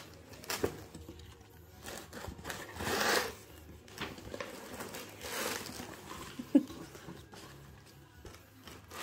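Cardboard gift box being opened and handled, with its paper insert and shredded-paper filler rustling in a few swells. A single sharp tap about two and a half seconds before the end is the loudest sound.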